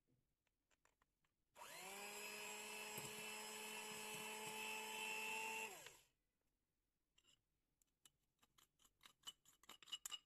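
Electric hand mixer beating eggs and powdered sugar. Its motor spins up about one and a half seconds in, runs steadily for about four seconds, then winds down and stops. A few faint taps near the end.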